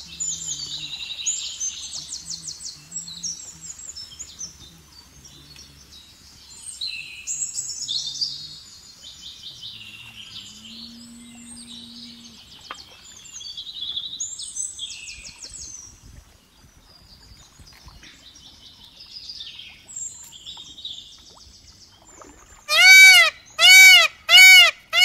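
Many birds chirping and singing together. Near the end, four loud, short pitched calls in quick succession from an animal.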